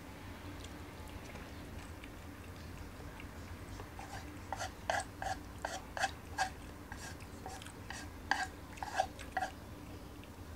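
Eating sounds at a table: after a few quiet seconds, a run of sharp clicks, about two a second, from a man chewing stir-fried vegetables and tofu and working wooden chopsticks in a non-stick frying pan.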